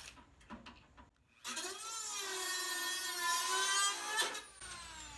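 A Dremel rotary tool with a cutoff disc starts about a second and a half in and cuts into the Beetle's sheet-steel front apron as a high whine that wavers slightly under load. After about three seconds it stops with a sharp click and winds down in a falling whine.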